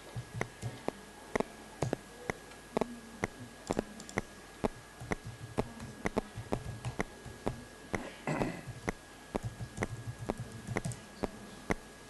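Computer keyboard keys being typed one at a time, sharp separate clicks about one or two a second, as a username and password are entered into a login form. A faint steady high whine sits underneath.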